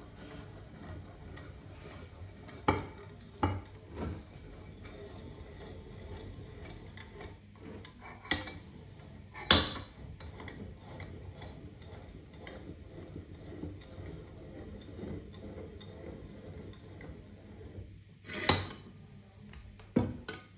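A new Eclipse 4-inch cast bench vise being worked by its screw handle, the jaws winding smoothly with a low mechanical turning sound. Several sharp metal clanks come from the handle and vise, the loudest about a third of the way in and again near the end.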